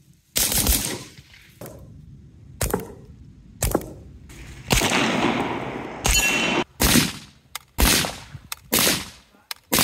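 Suppressed Arsenal SAM7K-55 rifle fired in single shots, roughly one a second, each shot a sharp crack with a short echoing tail.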